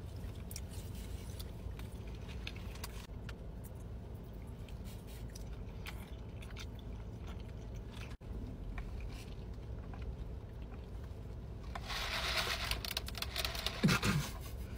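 Close-up chewing and crunching of loaded fries, with a plastic fork scraping the foil tray, over a steady low hum inside a car. Near the end a louder rushing hiss lasts about two seconds.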